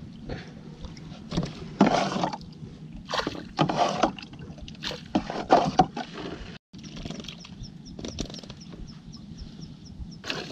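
Water sloshing and splashing in the hull of a small plastic boat, with irregular knocks and bumps against the hull as fish and water are handled.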